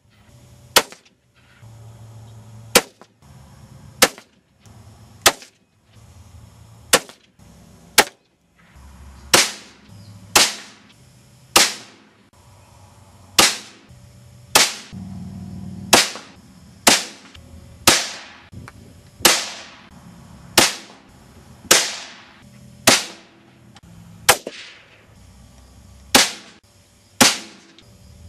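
A rapid string of about two dozen rifle shots from a Ruger 77/17 in .17 HMR, roughly one a second. Each is a sharp crack followed by a short ringing tail, and the tails grow longer in the second half.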